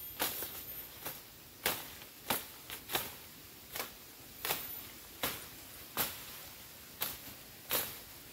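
Machete chopping through brush and stems by hand: a dozen or so sharp, crisp cuts, irregularly spaced about one every half second to a second.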